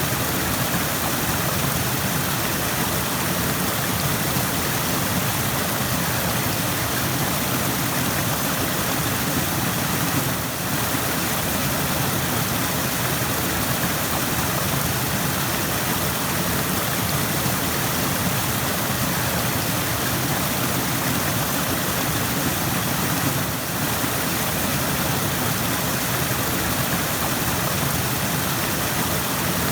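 Rushing stream water, a steady unbroken rush of flowing water that dips very briefly twice.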